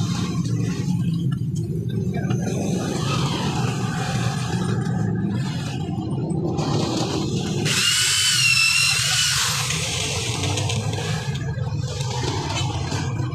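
Corded electric drill whining for about two seconds, drilling a hole through a bamboo ladder rail where a rung joins it; its pitch wavers as it runs. A steady low rumble runs underneath throughout.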